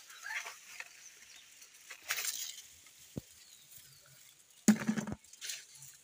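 Soft, scattered chewing and mouth sounds from eating a banana, with light rustling. A sudden short loud knock or thump comes a little before the end.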